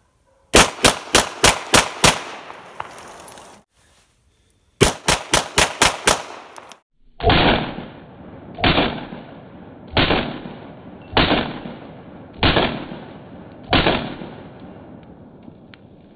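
Semi-automatic pistol fired in rapid strings: six quick shots at about four a second, then after a short gap another six. Then six duller shots follow, spaced a little over a second apart.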